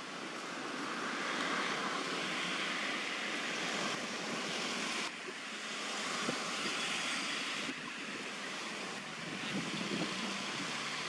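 Steady outdoor background hiss like wind through foliage and over the microphone. It drops abruptly in level about five seconds in and again near eight seconds.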